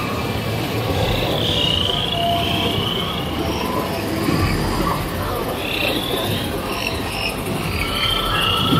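Chirping, frog-like creature calls from an attraction's recorded rainforest soundscape, repeating over a steady background hiss.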